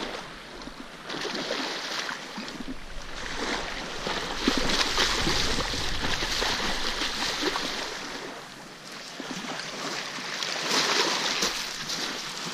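Water splashing as a hooked striped bass thrashes at the surface in the shallows, over small waves washing on a pebble shore. The splashing is loudest about four to seven seconds in and swells again near the end.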